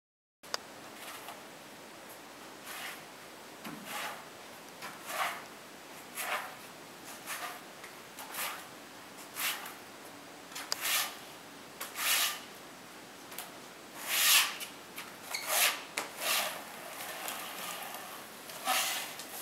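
Long-handled adhesive spreader scraping across a cement floor as floor-covering adhesive is spread, in repeated strokes about once a second.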